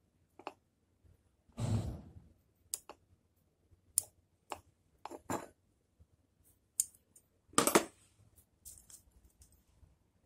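Bonsai scissors snipping: a string of short, sharp snips spaced unevenly, with two longer, louder noises about two seconds in and near eight seconds.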